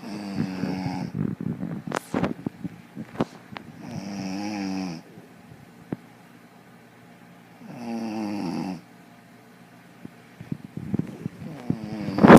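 An elderly woman snoring: three long, buzzy snores about four seconds apart, with short clicks in between and a sharp crackle near the end.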